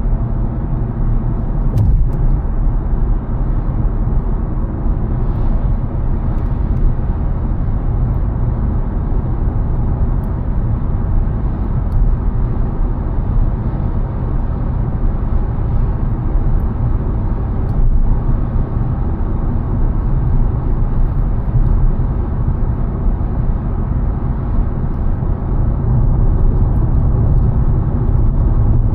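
A car driving along a road, with a steady low rumble of engine and tyre noise.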